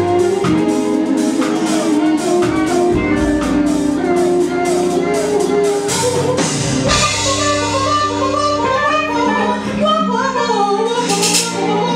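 Live band playing, with electric guitar and drum kit, and a woman's singing voice coming in over them about halfway through.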